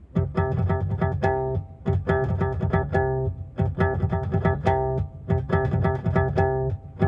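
Intro music: a plucked guitar playing a repeating picked pattern in phrases of about two seconds, with a bass line underneath.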